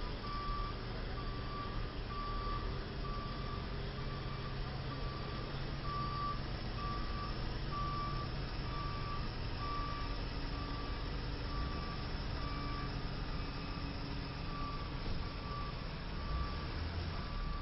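A truck's reversing alarm beeping at one pitch about once a second, over the low steady running of a heavy truck engine.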